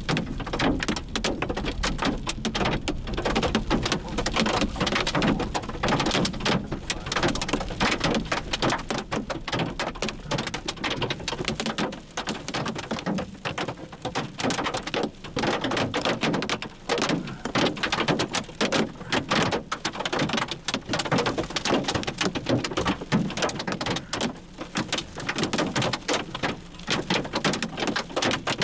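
Heavy rain from a thunderstorm pelting a hard surface, a dense, unbroken patter of drops.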